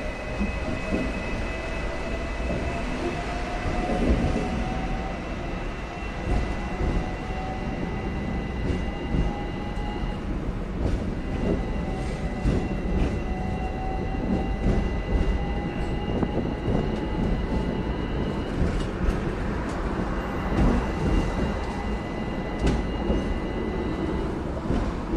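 Hong Kong double-decker electric tram running along its street track: a steady heavy rumble with scattered clicks and knocks from the wheels and car body. Over it are two steady high whistling tones and a whine that rises slowly in pitch twice, first over the opening ten seconds and again from about eleven to sixteen seconds in.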